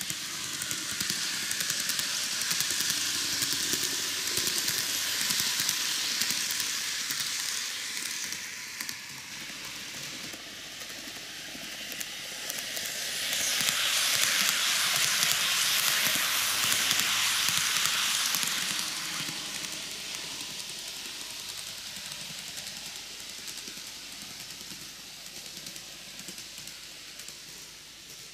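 TOMIX N-gauge Kintetsu 80000 series Hinotori model train running on track: a high, even rushing noise of its wheels and motor. It swells as the train passes close about halfway through, then fades as it runs away around the loop.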